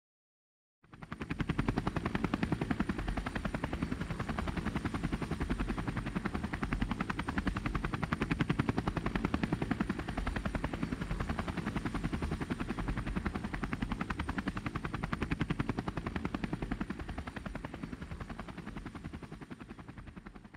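DJI Phantom 2 Vision+ quadcopter hovering close, its propellers and motors making a fast, even buzz with a steady high whine. It starts about a second in and tapers off near the end.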